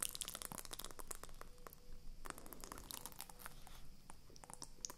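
Frozen ice cubes cracking and crackling in a flexible silicone honeycomb ice-cube tray as it is bent back and forth: a dense, irregular run of small cracks and pops.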